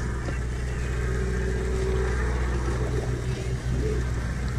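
Steady low drone of the 85-foot sportfishing boat's engine running, under an even hiss.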